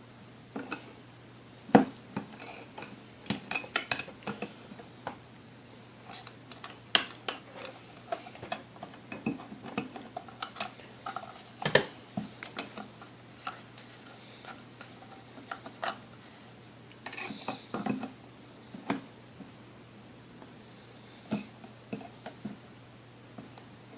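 Metal tool clinking and scraping on the tight motor nuts of a Hamilton Beach Model D mixer as they are worked loose: irregular small clicks and taps with a few sharper knocks.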